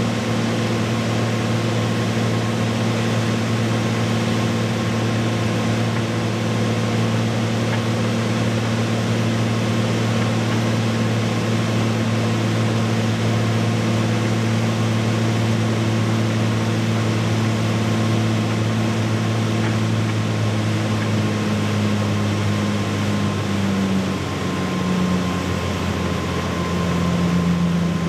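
Piper light aircraft's piston engine and propeller droning steadily, heard inside the cabin on final approach. About three-quarters of the way through, the engine note drops as power comes back for the flare over the runway.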